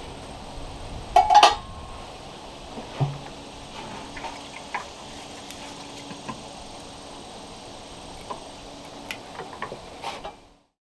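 Dishes and cutlery clinking: a louder clatter about a second in, then scattered light clicks and taps. The sound cuts off abruptly just before the end.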